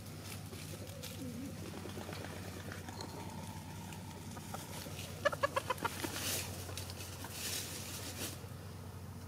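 Bantam hen clucking: a quick run of about six short clucks a little past halfway, over a steady low hum.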